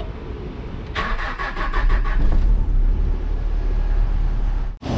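Mazda Bravo B2600 pickup's four-cylinder engine being started: a low rumble, then a short run of rapid clatter about a second in as it catches, settling into steady running that grows louder.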